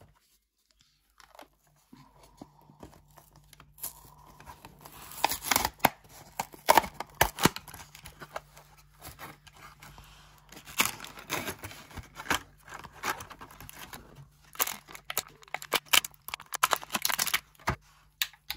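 A plastic blister pack is torn open from its cardboard backing card by hand, with bouts of crackling and crinkling plastic and tearing card. It starts after a quiet couple of seconds and comes and goes until near the end.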